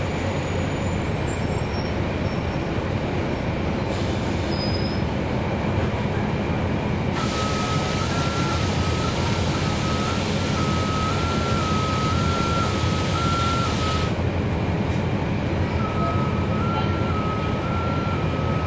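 Cummins ISL9 diesel engine of a 2011 NABI 40-foot transit bus running steadily, heard from inside the bus. From about a third of the way in, a hiss sets in for several seconds, and a high tone steps back and forth between two close pitches; the tone comes back near the end.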